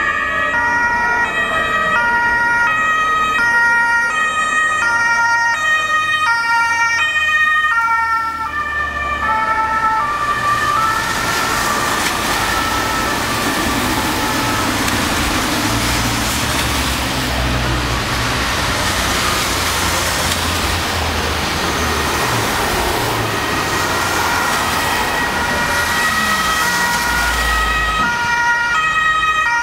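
German police two-tone sirens (Martinshorn) alternating between a high and a low note, with a steady high tone over them. In the middle, as the vans and motorcycles pass, a loud hiss of tyres on the wet road and engine rumble drown the sirens, which come back near the end.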